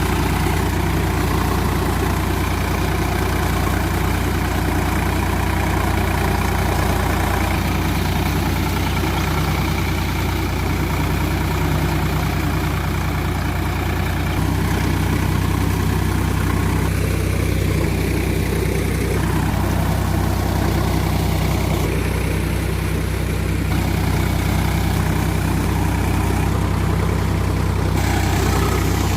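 Sonalika DI-47 RX tractor's diesel engine running steadily.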